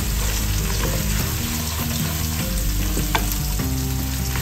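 Sliced onions and ground spices frying in oil in a pot, sizzling steadily while a wooden spatula stirs them round. A single sharp click about three seconds in.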